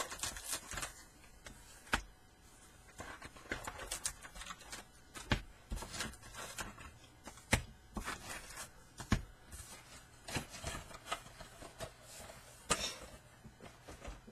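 Foil baseball card packs being pulled from a cardboard box and set down in stacks on a wooden desk: light rustling of the wrappers with scattered sharp taps and knocks.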